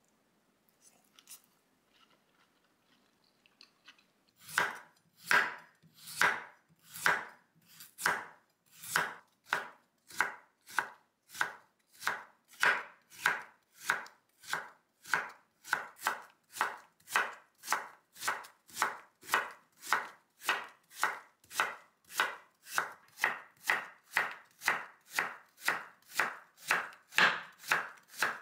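Kitchen knife slicing carrot and then Korean radish into matchsticks on a wooden cutting board: crisp regular strokes that start about four seconds in, about one a second at first and quickening to about two a second.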